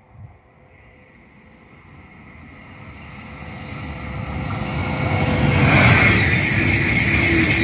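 Renfe AVE S-100 high-speed electric train approaching and passing at speed: a rushing noise grows steadily louder for about five seconds, then stays loud with a high whine as the carriages go by.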